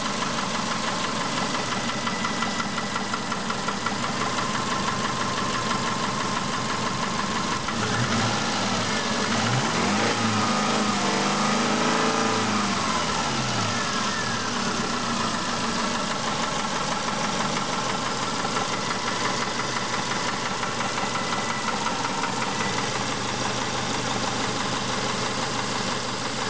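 Warmed-up Subaru Impreza 1.5-litre flat-four engine idling with a knock whose cause the owner is asking about. It is revved up and eased back down from about eight seconds in.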